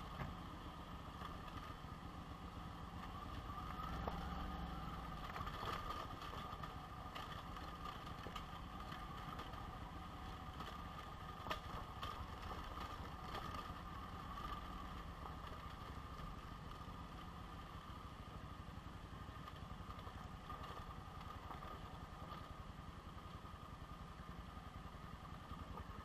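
Cagiva Elefant motorcycle's V-twin engine running steadily while riding over a rough dirt trail, with a few sharp knocks as the bike hits bumps.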